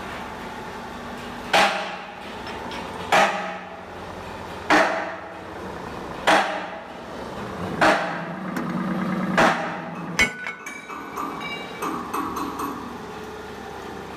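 Hydraulic bending press working a rusty steel channel: six sharp metallic bangs about a second and a half apart over a steady machine hum. Lighter metal clinks and rattles follow near the end.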